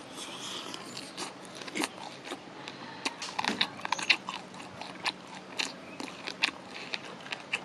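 Close-miked biting and chewing of sauce-glazed Korean spicy fried chicken: a bite at the start, then chewing with many sharp crunches and wet mouth clicks, thickest about three to four and a half seconds in.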